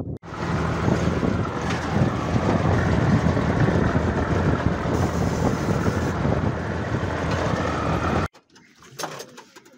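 A 6x6 truck driving, heard from on board: loud, steady engine and ride noise that cuts off abruptly near the end.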